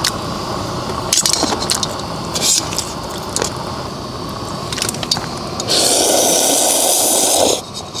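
Food sizzling on a hot iron griddle, a steady hiss with a few sharp clicks of utensils against the metal. Near the end, a louder hiss lasts about two seconds.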